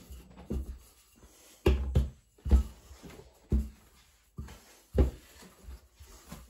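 Dull, irregular knocks, about five of them, from a rolling pin working pastry dough on a kitchen worktop, with quieter handling noise between.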